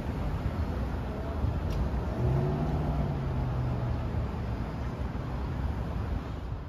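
Street traffic rumbling steadily, with a car's engine swelling and passing about two seconds in.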